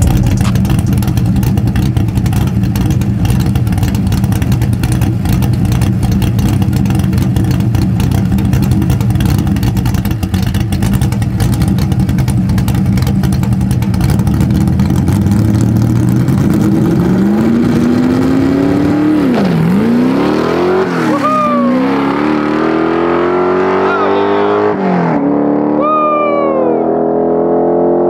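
Foxbody Mustang's 410-cubic-inch stroked 351 Windsor V8 running steadily, then launching hard. It revs up through the gears with a sharp drop in pitch at each upshift of the manual gearbox.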